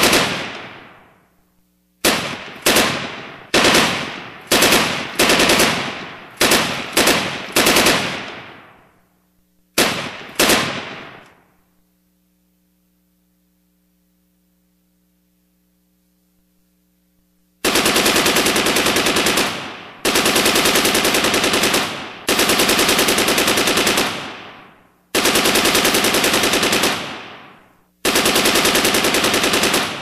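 Gunfire: a dozen or so single shots, each with a ringing tail, about a shot every half second to second, then a pause of several seconds, then five bursts of rapid automatic machine-gun fire, each about two seconds long with short gaps between.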